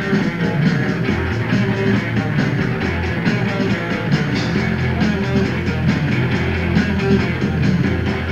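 Live rock band playing an instrumental stretch led by electric guitar, with bass and drums, heard through a muddy, lo-fi cassette tape recording.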